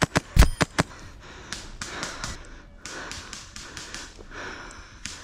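Rapid string of airsoft gun shots, about five sharp cracks in under a second, followed by heavy breathing.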